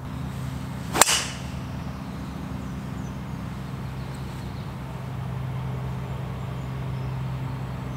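A driver strikes a golf ball off the tee about a second in: one sharp crack, over a steady low hum.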